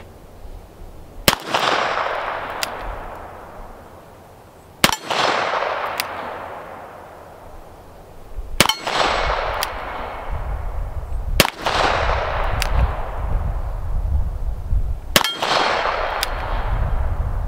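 Five shots from a Taurus Defender 856 .38 Special revolver, fired a few seconds apart. Each shot is sharp and followed by a long fading echo.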